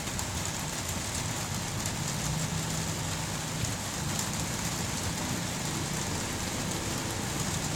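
Steady, even hiss of background noise, like rain or distant traffic, with faint small ticks.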